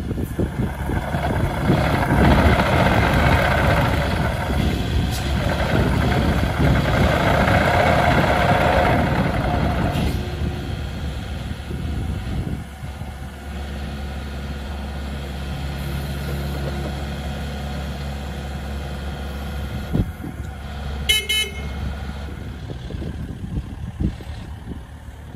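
Kubota KX080-4 excavator's diesel engine running, louder and busier for about the first ten seconds, then settling to a steadier, lower idle. Near the end a short beep sounds once.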